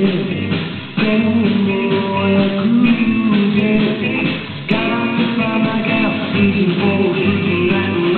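Recorded rock and roll song playing: a singing voice with guitar over a steady pulsing bass beat, dropping out briefly about a second in and again just before the middle.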